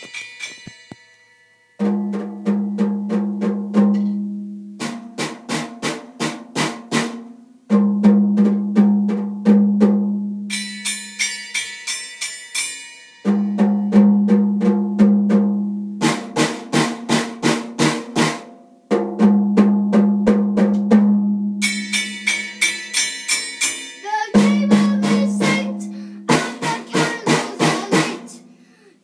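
Toy drum kit beaten with drumsticks: rapid runs of strokes, about four or five a second, in phrases of a few seconds that start hard and tail off, the drumheads ringing under the hits. Twice a higher metallic ringing joins in, like a small cymbal.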